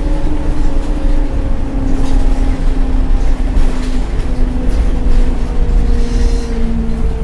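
Solaris Urbino 10 II city bus under way, its MAN D0836 six-cylinder diesel and ZF 4HP502 automatic gearbox running with a steady low rumble and a whine that slowly falls in pitch.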